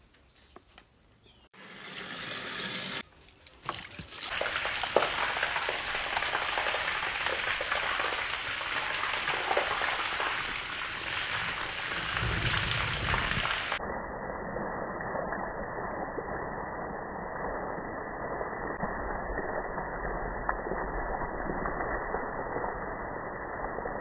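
Water gushing steadily from a hose, spraying across a concrete yard and onto garden plants; the rush starts a few seconds in and runs on evenly.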